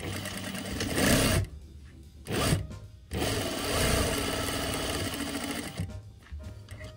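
Sewing machine stitching a seam through folded fabric in three runs: one of about a second and a half, a brief burst, then a longer run of nearly three seconds, with short pauses between them.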